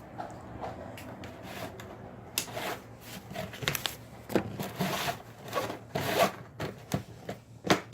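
Hands handling and working small parts: irregular rubbing and scraping strokes, busier in the second half.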